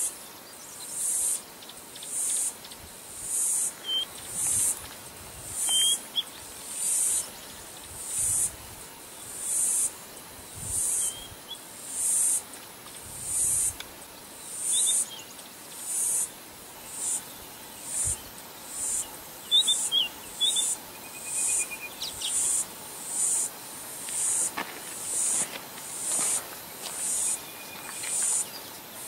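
Insects calling in high-pitched pulses, about one a second, over a steady hiss. A few short bird chirps come in here and there.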